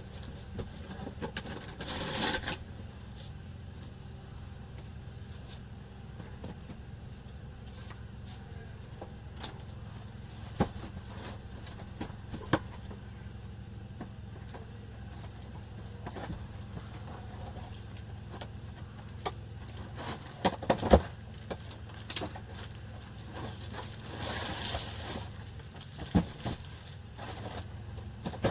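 Scattered clicks, knocks and short scrapes of objects being handled, over a steady low hum.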